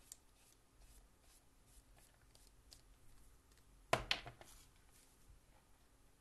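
Faint scratchy strokes of a watercolour brush on paper, then about four seconds in a brief clatter of two quick knocks as the brush is put down and the clipboard is handled.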